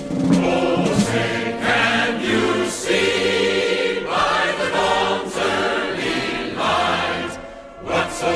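A choir singing a national anthem, in phrases that change every second or so over sustained low notes.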